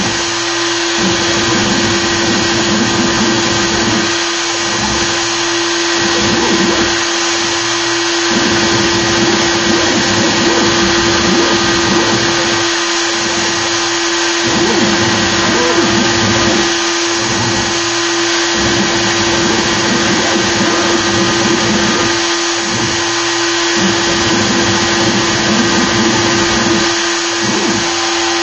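Router spindle on a Joe's 4x4 Hybrid CNC machine running at a steady pitch as its bit carves a 3D relief into wood. The cutting noise underneath rises and falls every second or two as the bit moves through its passes.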